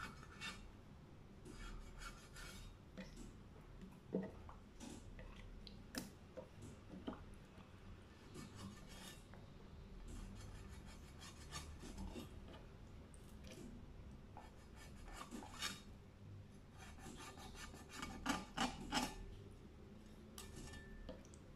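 Cleaver blade scraping and cutting into a whole round scad on a wooden chopping board: faint clusters of short rasping strokes, the loudest run near the end.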